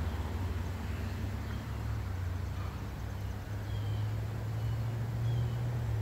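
Outdoor background: a steady low rumble, a little stronger in the second half, with a few faint, short high chirps.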